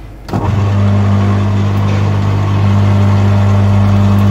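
A new garden wood chipper is switched on and runs with a steady low hum. Its cutting blades are set to the reverse (unjam) setting, so it is not cutting.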